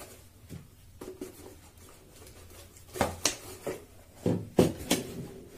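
Cardboard box being handled and pushed across a desk: faint taps and rubbing, then a cluster of sharp knocks about three seconds in.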